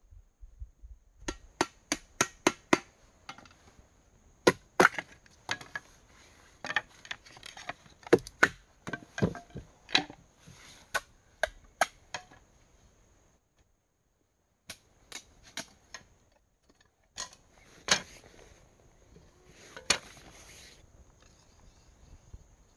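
A knife chopping and splitting bamboo: sharp woody knocks, a quick run of strikes about a second in, then irregular single cuts with a short pause before a few more.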